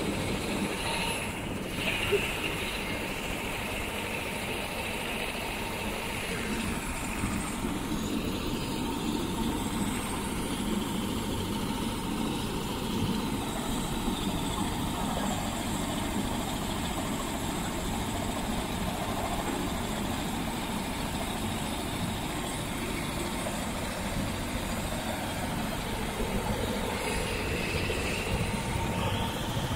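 Airbus AS350 single-engine helicopter idling on the ground with its main rotor turning: a steady turbine whine under a constant rotor and engine rush.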